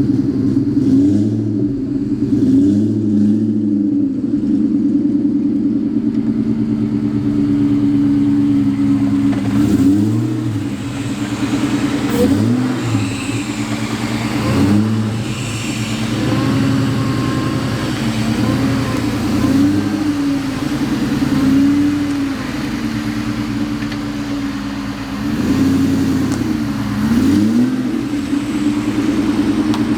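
Supercharged 4.6-litre DOHC V8 of a 2003 Ford SVT Cobra running through an aftermarket exhaust, idling steadily while it is blipped to quick revs that rise and fall back, about a dozen times with pauses of a couple of seconds between.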